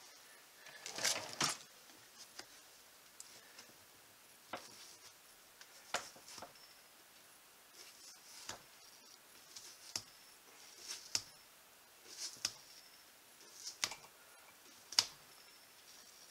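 Stainless blade of a Mercator knife cutting the rubber sole off a leather boot: a run of short, sharp snapping cuts, about one every second and a half, with a longer rasping cut about a second in. The blade has lost its shaving edge and is being forced through the carbon-loaded sole with extra pressure.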